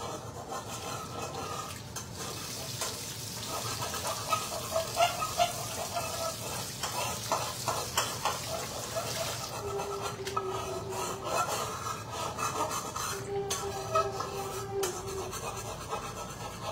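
Tap water running into a sink while raw fish is rubbed and rinsed by hand under it, with small clicks and knocks against the sink.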